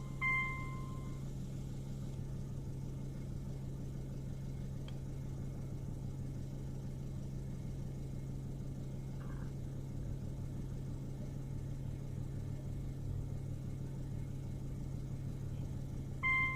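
Car engine idling steadily, an even low hum. A short two-tone beep sounds just after the start and again at the very end.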